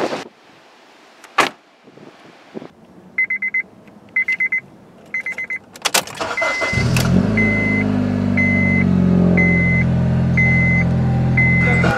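A few sharp clicks, then three short bursts of rapid electronic beeps. About halfway through a car engine starts and keeps running, while a single high warning chime sounds about once a second over it.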